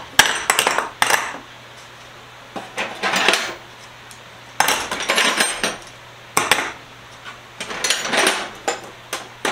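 Steel wrenches clinking and clanking against each other as they are picked up from a pile and set down on a workbench. The sound comes in about five short clusters with pauses between, over a faint steady low hum.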